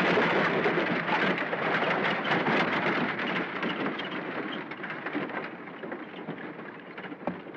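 A group of horses galloping on a dirt street, a dense drumming of many hoofbeats that fades steadily as the riders move away.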